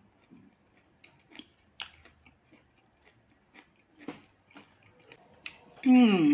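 Close-miked mouth sounds of a person chewing and biting chicken meat: scattered soft wet clicks and smacks. Near the end comes a loud, short vocal sound that falls in pitch.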